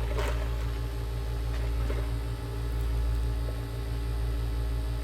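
Steady low background rumble and hum, with faint short rustles about a quarter second in and near two seconds.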